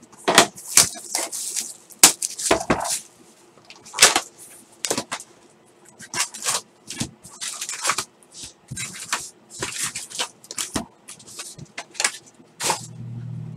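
Foil-wrapped 2016 Donruss Optic trading-card packs and their cardboard box being handled, packs crinkling and rustling in quick irregular bursts as they are pulled out and stacked. A low hum comes in briefly near the end.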